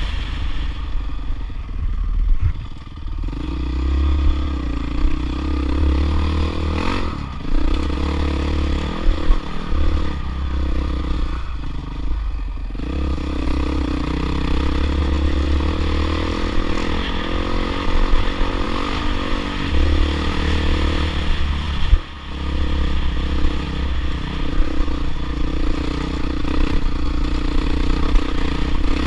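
Off-road motorcycle engine running under way on a rough dirt track, the revs rising and falling with the throttle and dipping briefly a couple of seconds in and again about three-quarters of the way through, with clatter and scraping from the bumpy ground.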